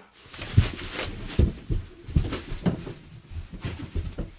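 Irregular thumps with crackling and popping of bubble wrap as someone goes down a staircase covered in it, about one to two knocks a second.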